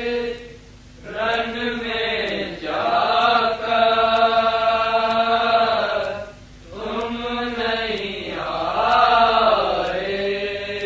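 Male voice singing an Urdu noha (a mourning lament) unaccompanied, drawing out long held notes that waver slowly in pitch. The singing breaks for a breath about half a second in and again a little past the middle.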